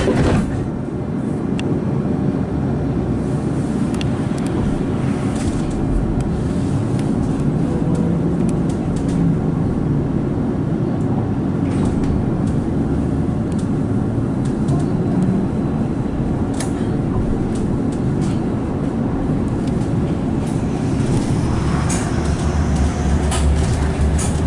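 Cabin noise of a Hess Swisstrolley 3 articulated trolleybus under way: steady road rumble with a low electric drive hum that drifts up and down in pitch, and scattered light clicks and rattles.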